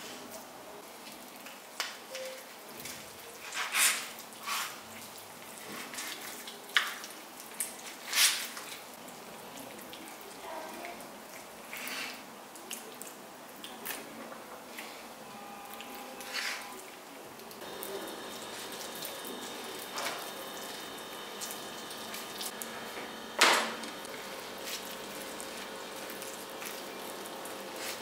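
Marinated coot halves being threaded onto long flat metal skewers: wet squelches and drips of marinade, with scattered clicks and knocks of the metal skewers against each other and on a plastic cutting board, the loudest a little before halfway and near the end. About two-thirds in, a steady hum with a faint whine joins.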